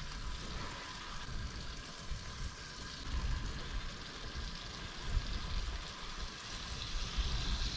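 Butterflied akule (bigeye scad) frying in a pan on a camp stove: a steady sizzle, with low wind rumble on the microphone.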